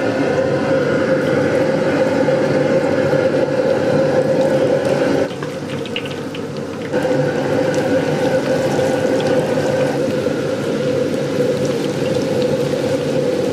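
Wet squelching and sloshing of hands kneading meat strips in thick starch batter, over a steady kitchen roar. Near the end, hot oil sizzles in the wok as battered pieces go in.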